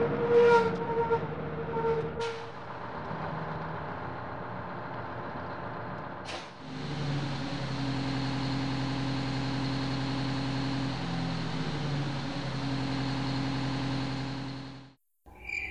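Coach bus engine running, with three short sharp hisses in the first seven seconds. From about seven seconds in the engine hum is louder and steadier, then it cuts off shortly before the end.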